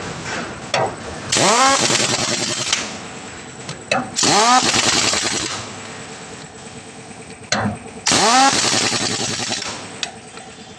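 Heavy-duty pneumatic impact wrench run on a tractor-trolley wheel nut in three bursts of about a second and a half each. Each burst opens with a rising whine as the air motor spins up, then turns into a loud hammering rattle with air hiss.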